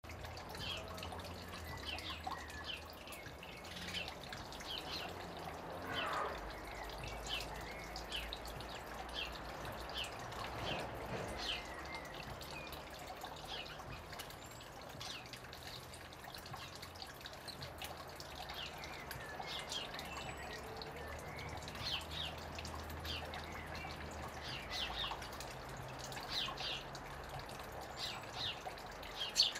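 A thin stream of water trickling and dripping from a rock ledge into a shallow garden pool, with sparrows giving frequent short chirps.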